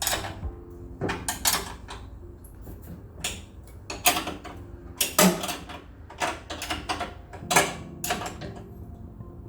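Spanner working the four bolts that hold the chain adjustment, with irregular metallic clinks and knocks, some of them ringing briefly.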